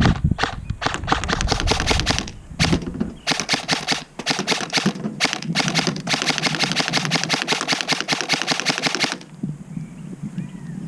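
Krytac PDW electric airsoft gun firing on semi-auto: rapid sharp shots in quick succession, stopping about nine seconds in.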